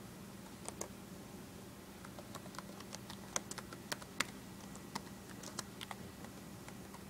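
Laptop keyboard being typed on: a quiet, irregular run of light key clicks, thickest in the middle, over a faint steady hum.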